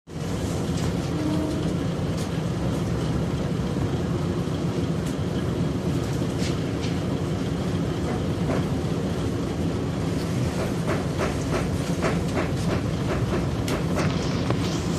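Isumi Railway diesel railcar pulling away with a steady low engine rumble. From about two-thirds of the way in, the wheels click over rail joints faster and faster as it gathers speed.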